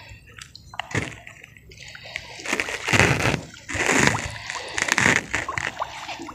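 Shallow lake water splashing and sloshing as someone wades through it, a swish with each step, several times about a second apart.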